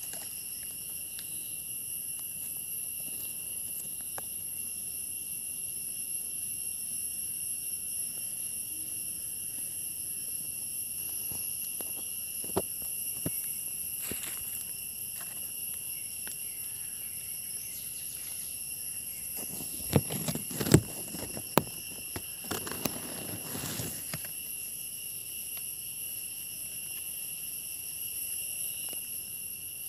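Steady insect chorus, crickets or similar, holding several high even tones without a break. About twenty seconds in, a short cluster of sharp knocks and rustling stands out above it.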